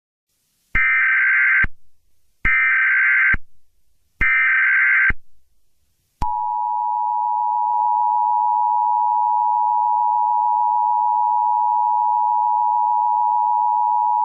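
Emergency Alert System signal: three short bursts of SAME header data tones, each about a second long, then the two-tone EAS attention signal, a steady pair of tones held for about eight seconds.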